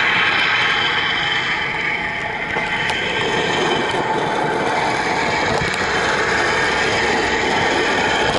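HO-scale model train running along the track, a steady mechanical running sound of the locomotive and wheels on the rails, with a few held tones over it.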